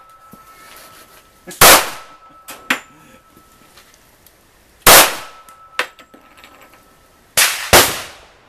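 Smith & Wesson M&P45 pistol firing .45 ACP rounds: four loud shots, single ones about a second in and near the middle, then two in quick succession near the end, with fainter sharp cracks between them.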